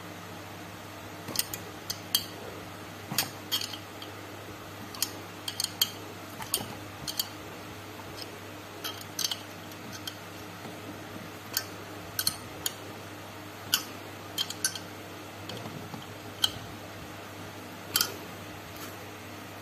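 Light metallic clicks and clinks at irregular intervals from a small steel hand tool knocking against the threaded rod of a camshaft bearing puller and the aluminium cylinder head, over a steady low hum.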